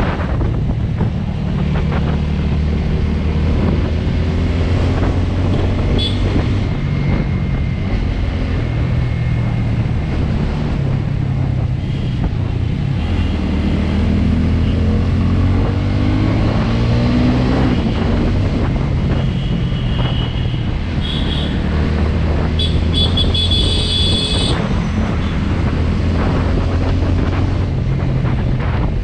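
TVS Apache motorcycle's single-cylinder engine running under way, its note rising and falling with throttle and gear changes, with wind rushing over the microphone. A few short high-pitched tones come about three-quarters of the way through.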